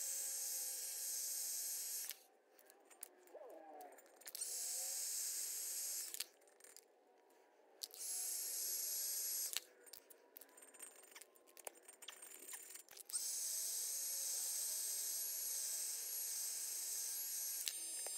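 Electric heat gun blowing hot air with a steady high hiss, stopping four times for a second or two.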